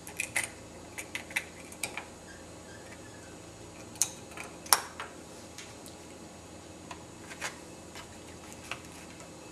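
Plastic Lego pieces clicking and tapping as the small carts of a Lego garbage-truck model are tipped, lifted and set down by hand. The clicks are scattered, with two sharper knocks about four and five seconds in, over a faint steady hum.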